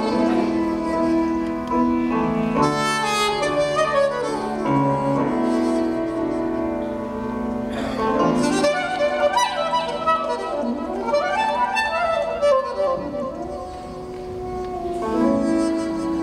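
Straight soprano saxophone playing a solo melody of long held notes joined by some sliding, quicker phrases.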